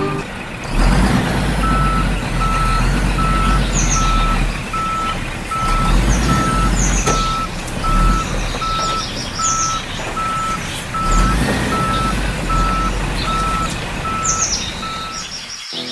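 Truck reversing alarm beeping steadily, about two and a half beeps a second at one pitch, over the low rumble of an idling diesel engine, with short high chirps now and then.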